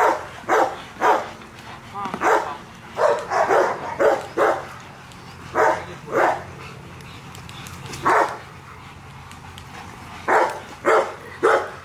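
Rottweilers barking in short clusters of one to several barks, with gaps of a second or two between clusters.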